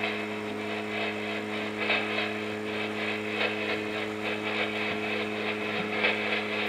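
A steady low hum with several evenly spaced overtones, under faint irregular crackling.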